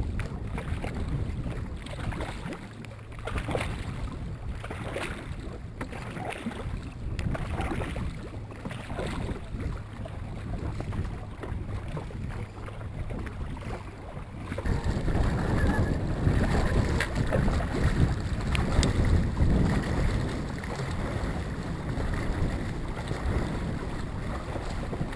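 Dragon boat crew paddling in unison: wooden paddles dipping and pulling through the water in a steady rhythm of about one stroke a second. About halfway through, wind buffeting the microphone grows louder under the strokes.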